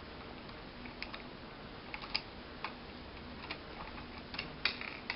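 Faint, scattered clicks and ticks of a small screwdriver backing out the side screws that hold a laptop display to its hinges, coming more often near the end.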